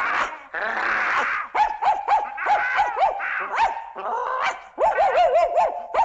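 Cartoon sound-effect dog barking and yipping. First comes a jumble of overlapping yelps, then a run of short, high yips, each dropping in pitch, coming faster near the end.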